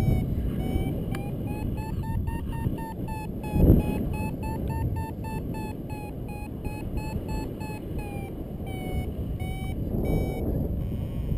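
Paragliding variometer beeping, short tones about two a second that step up and down in pitch, signalling that the glider is climbing in lift. Wind rumbles on the microphone throughout, with a loud gust about four seconds in.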